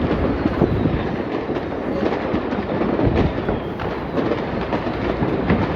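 Fireworks going off in a dense, continuous barrage of rapid pops and crackles over a steady rumble.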